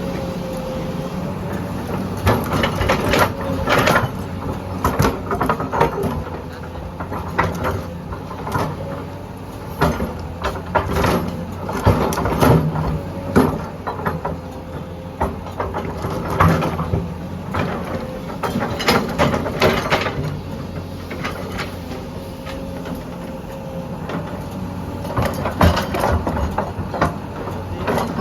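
Diesel engine of heavy construction machinery running steadily, with repeated knocks and clatters of metal throughout.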